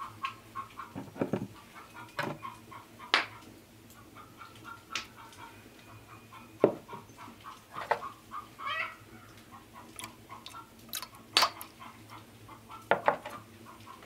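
Hens clucking in quick runs of short calls, with sharp clinks and knocks of a cup and utensils against a metal pail as ingredients are tipped in.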